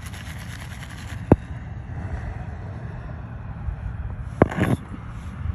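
Wind rumbling on the microphone, with a sharp click about a second in and a short run of clicks and knocks near the end as the plastic gold pan and its pebbles are handled.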